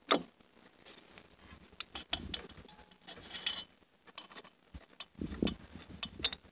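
Light metal clicks, clinks and soft knocks as a snowmobile carburetor is handled and its jets and screws are fingered, in short scattered bursts.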